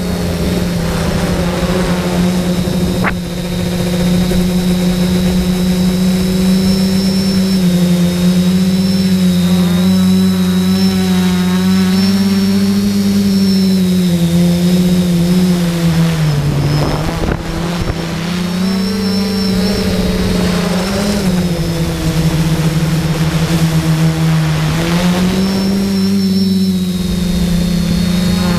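SK450 quadcopter's electric motors and propellers heard from on board: a loud steady hum with a high whine above it, the pitch rising and falling with throttle changes and dipping sharply about sixteen seconds in.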